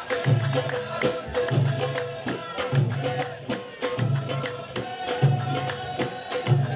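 Live Amazigh taghwacht folk music: a steady rhythm of frame drums and hand percussion, hit several times a second over a low pulse that recurs about every second and a quarter, with a tone held over the top.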